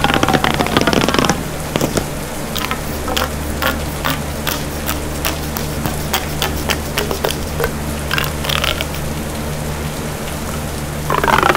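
A distorted creature sound effect, a rattling, siren-like noise in repeated falling sweeps, cuts off about a second in and comes back near the end. Between them a steady low hum runs, with scattered crackling clicks.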